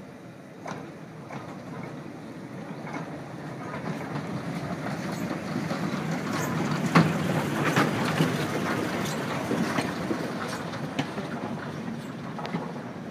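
Small diesel shunting locomotive and coach passing close at low speed: engine running and wheels clicking over the rail joints, getting louder to a peak about halfway through, then easing off a little.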